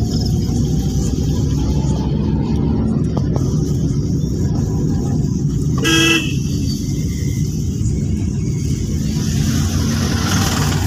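Steady low engine and road rumble heard inside a moving car, with one short car-horn toot about six seconds in.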